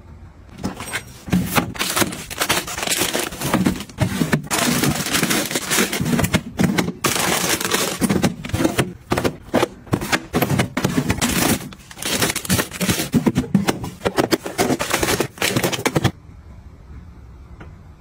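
Cardboard boxes being handled and packed into a plastic freezer drawer: dense rustling, scraping and light knocking, then an abrupt cut-off near the end.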